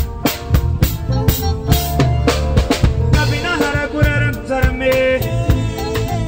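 Live band playing a song with a drum kit keeping a steady beat and a keyboard; a male voice comes in singing about three seconds in.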